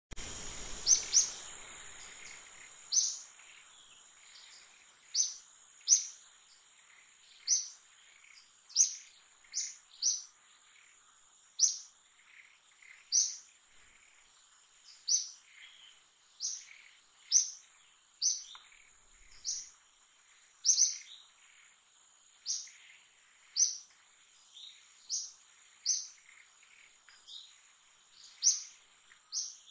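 A bird repeating a short, high chirp about every one to one and a half seconds, sometimes twice in quick succession, over a steady thin high-pitched tone in the background.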